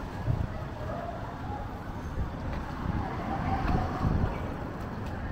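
Street traffic ambience: a steady low rumble of passing cars and motor traffic, with faint voices in the background.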